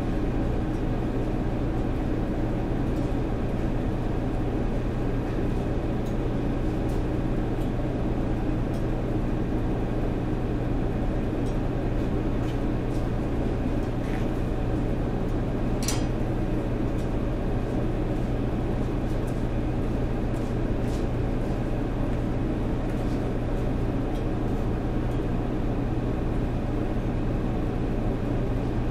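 Steady, loud drone of a running machine with a strong low hum, unchanging throughout. A single sharp click about sixteen seconds in, with a few faint ticks elsewhere.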